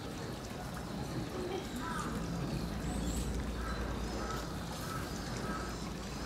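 Distant crowd chatter with a bird calling in a run of short, evenly spaced notes in the middle.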